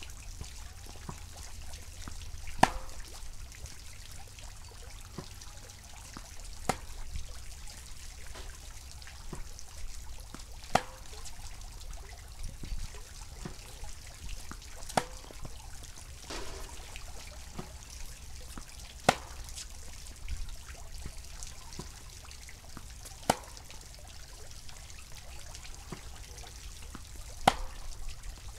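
Tennis ball struck by a racket on groundstrokes: seven sharp pops, about one every four seconds, with fainter knocks of the ball bouncing or being returned from the far court between them. A steady rushing noise, like wind on the microphone, lies underneath.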